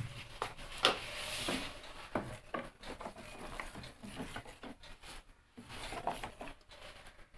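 Steel spoon stirring thick rice-and-coconut batter in a steel bowl, mixing sugar into the risen palappam batter: soft swishing with scattered light clicks of the spoon against the bowl.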